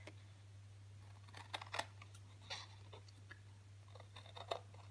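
Small scissors snipping through black photo card: several short, crisp cuts spread through the middle and end, over a steady low hum.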